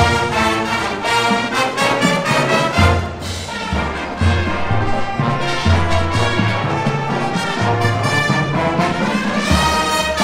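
A college marching band playing full-out: trumpets and trombones carry the tune over heavy low-brass bass notes that change every half second or so.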